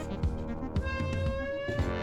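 Background music with a steady beat and a held melodic note.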